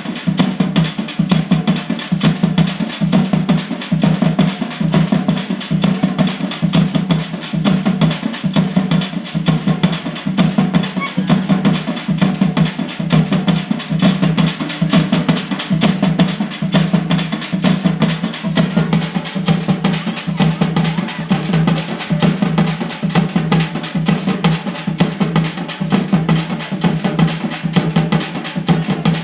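Loud drums beaten in a fast, unbroken rhythm, played as procession drumming for the peerlu.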